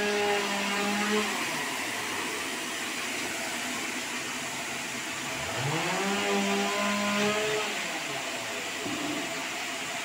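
Sawmill bandsaw running with a steady hiss. A motor hum rises in pitch, holds and falls away twice: once at the start and again about six seconds in.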